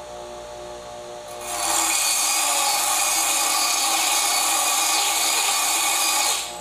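Bench grinder running with a steady hum. About a second and a half in, a hand-held star-wheel dresser is pressed against the spinning grinding wheel, and a loud, harsh hiss of dressing holds for about five seconds, then cuts off sharply near the end. The dresser's cutter wheels, on a newly turned bushing, are turning freely rather than locking up.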